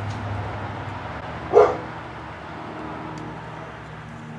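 A dog barks once, sharply, about one and a half seconds in, over steady low room noise.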